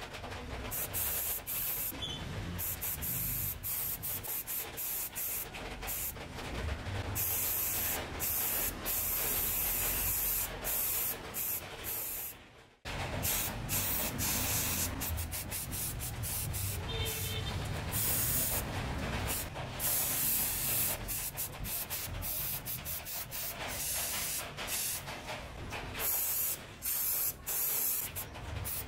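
Paint being sprayed onto chainsaw housing parts: a hissing spray that stops and starts many times in short and longer bursts, with a brief silence about halfway.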